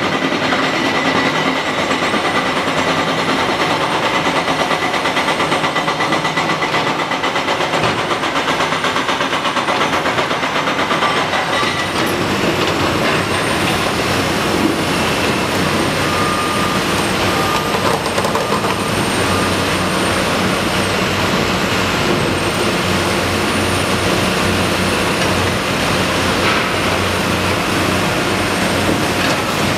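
Caterpillar 345C L hydraulic excavator working: its diesel engine runs steadily under load with a constant mechanical clatter. A thin, high wavering whine rises and falls above it throughout.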